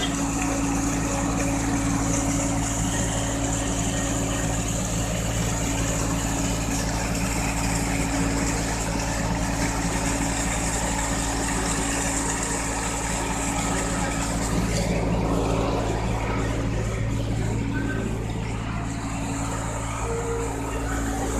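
Tractor diesel engine running steadily at constant speed, driving a PTO-powered centrifugal water pump, with the rush of the pump's big discharge jet splashing onto the ground.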